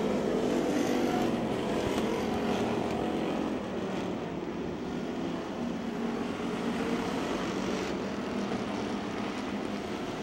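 Several dirt-track stock car engines running at racing speed around a clay oval, a steady drone that eases slightly about four seconds in.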